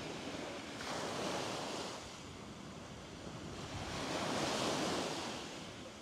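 Sea surf: waves washing in, the rush swelling twice, once about a second in and again about four seconds in.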